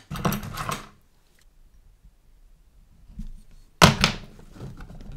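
Handling noises at a modelling workbench: a brief rustle at the start, then quiet, then one sharp knock about four seconds in, as of a small tool or part being set down, followed by light handling sounds.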